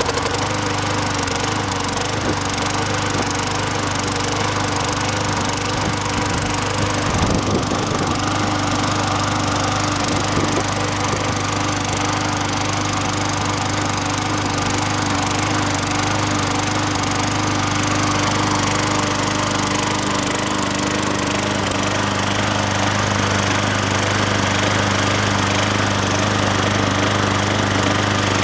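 Craftsman mulching push mower's Eager-1 6.75 single-cylinder engine running steadily at an even speed, just after it has been got working again.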